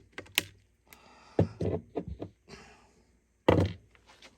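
Sharp clicks and knocks of hand tools working on a metal radio power-supply chassis, about half a dozen irregular strikes with the loudest about three and a half seconds in.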